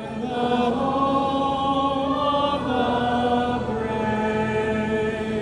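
Music with a choir holding long, sustained chords that swell in at the start and shift pitch slowly, with no words sung.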